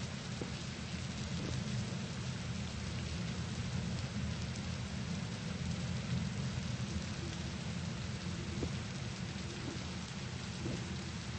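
Steady rain: an even hiss with a strong low rumble underneath.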